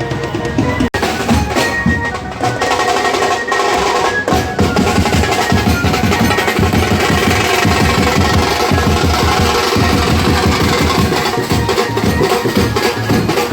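Loud procession drumming: many drums beating fast, dense rhythms without a break, with a steady melody line over them. There is a brief cut in the sound about a second in.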